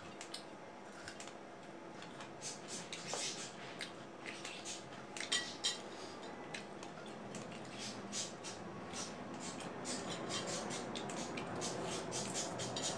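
Scattered small clicks and clinks of fingers picking cut guava pieces off ceramic plates, mixed with crunchy chewing, thicker in the second half.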